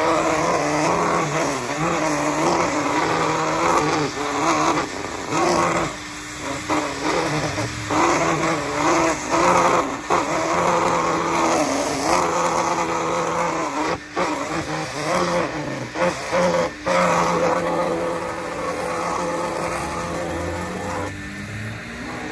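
Vacuum cleaner running, its hose nozzle worked over a car's floor, with a steady whine that wavers in pitch and dips briefly a few times.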